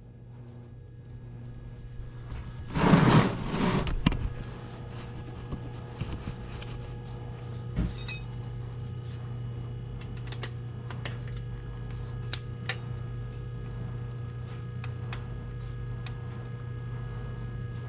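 Metal hand tools clinking and scraping on a YZ450F's engine while the oil drain plug is worked loose: a louder rattling scrape about three seconds in, then scattered light metallic clicks and taps.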